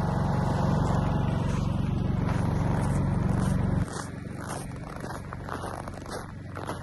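Portable gas generator engine running steadily with a low hum that abruptly drops to a much fainter hum about four seconds in. After the drop, footsteps crunch in snow.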